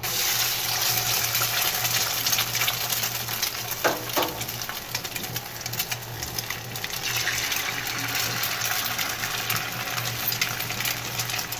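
Eggs frying in hot oil in a frying pan: a steady crackling sizzle that starts suddenly as the first egg drops into the oil, with two short knocks about four seconds in.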